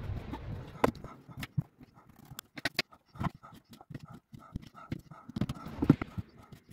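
Kitchen knife slicing through firm pine mushrooms and tapping on a cutting board: a run of irregular sharp clicks and knocks.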